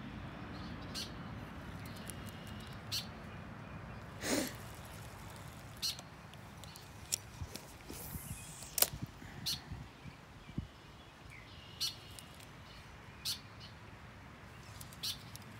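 About a dozen sharp clicks and taps, scattered and irregular, from a spinning rod and reel being handled in a canoe. The loudest click comes about nine seconds in.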